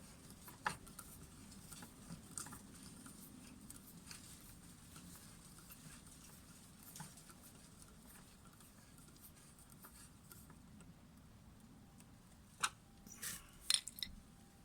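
Faint, scattered clicks and small handling noises, with a sharper cluster of clicks near the end.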